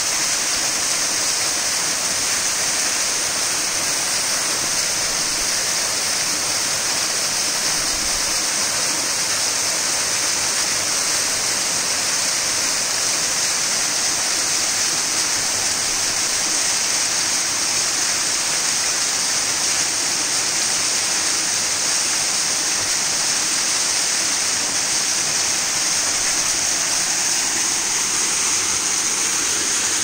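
A waterfall's falling water rushing, a steady, unchanging hiss.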